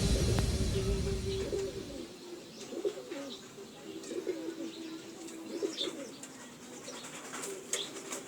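Background music fading out over the first two seconds, then pigeons cooing in low, wavering calls, with a few short high chirps.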